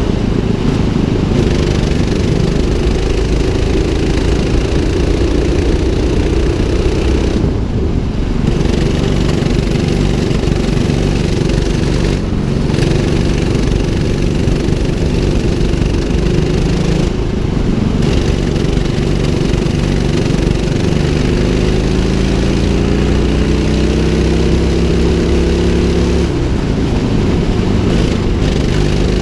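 200cc rental go-kart engine running flat out around a track, its revs rising and falling with the corners: the note dips briefly three times, then climbs steadily for about five seconds before dropping off sharply near the end.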